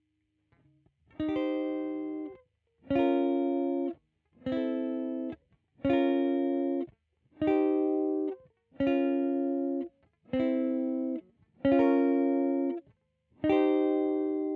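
Squier Vintage Modified Jaguar electric guitar strumming a chord nine times, about every second and a half. Each chord is held about a second and then muted short; the last one is left to ring.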